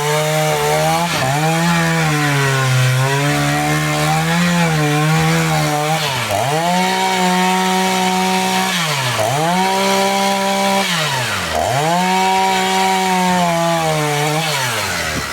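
Chainsaw running at high revs while cutting firewood logs. Its engine note wavers, then drops sharply and climbs back three times in the second half.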